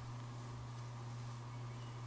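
A steady low hum over faint hiss, with no distinct events.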